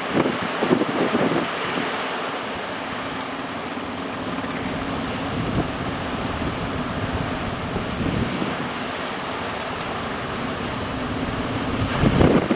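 Surf breaking and strong wind buffeting the microphone, with gusts near the start and end. A fishing boat's engine gives a steady low hum through the middle.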